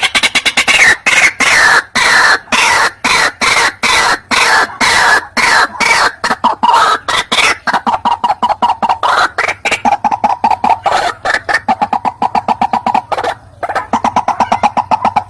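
White-breasted waterhen (ruak-ruak) calling: a loud, fast run of repeated harsh notes, several a second. The notes fall in pitch at first, then settle into a steady series, with a brief break near the end.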